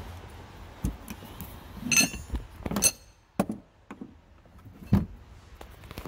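Hand handling of a key and lock at an SUV's rear cargo sill: several separate clicks and knocks, with a short metallic jingle about two seconds in.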